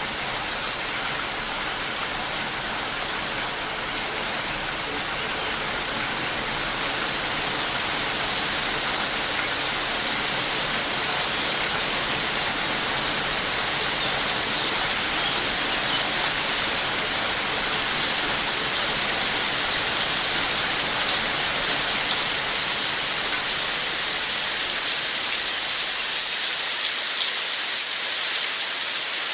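Steady rain falling, a dense hiss of many drops, growing slightly louder over the first several seconds and then holding steady.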